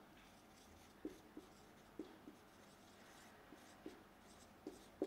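Marker pen writing on a whiteboard: faint strokes and light taps of the tip, about eight short sounds spread through a few seconds.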